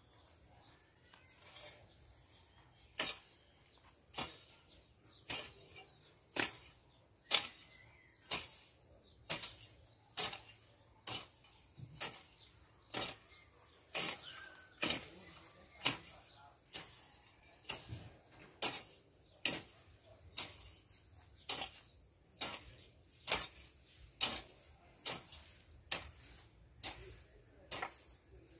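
Hand hoe striking into dry soil and weeds, a short chopping scrape about once a second, starting about three seconds in.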